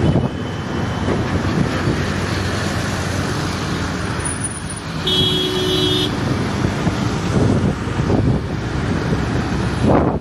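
Steady road and traffic noise heard from a moving two-wheeler riding through city traffic. A vehicle horn sounds for about a second halfway through.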